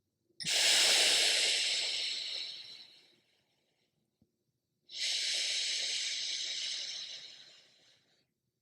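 Slow, long breaths through the nose during alternate nostril breathing: two airy breaths of about three seconds each, each fading away at the end, with a pause between them.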